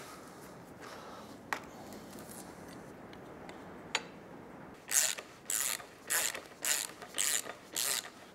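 Hand ratchet socket wrench driving a bolt through a metal fence clip into timber: a regular run of ratcheting strokes, about two a second, starting about five seconds in, after a couple of light clicks as the bolt is set in place.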